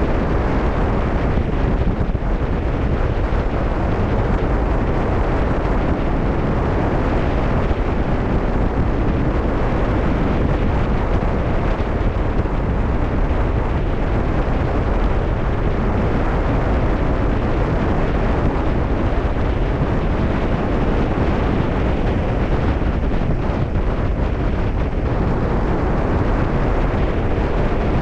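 Wind buffeting the microphone on the deck of a cruise ship at sea, a steady, deep rumbling noise with no let-up.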